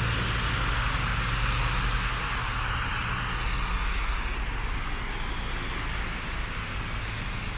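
Car traffic passing on a snowy city street: tyre hiss over a low engine hum.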